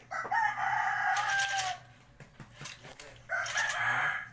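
Two rooster crows: a long crow that sags slightly in pitch at its end, then a second one starting about three seconds in.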